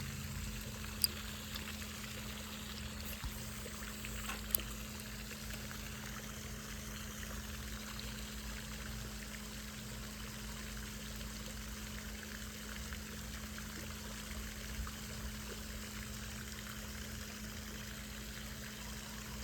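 Steady trickling, running-water noise with a constant low hum under it, and a couple of small clicks about one and four and a half seconds in.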